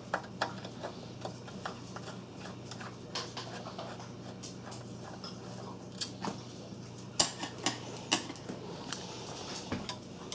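Phillips screwdriver backing out the screws that hold the metal shield cage of a Commodore 1541 disk drive: light, irregular metal clicks and ticks, with a couple of louder clicks about seven seconds in.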